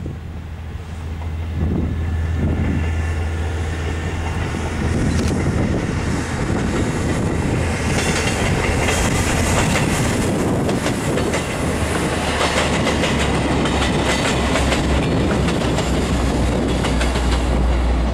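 SNCF X 2100 diesel railcars passing. The engine drone is steady and grows louder about a second and a half in, and the wheels click over the rail joints most through the second half.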